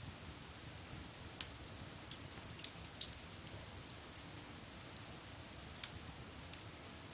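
Wood fire crackling in a fireplace, with irregular sharp pops and snaps over a low hiss, a couple of louder pops about three seconds in.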